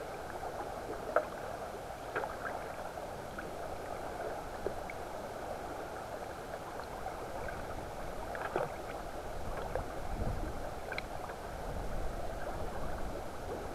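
Muffled water noise heard by a submerged camera: a steady hiss with scattered faint clicks and ticks.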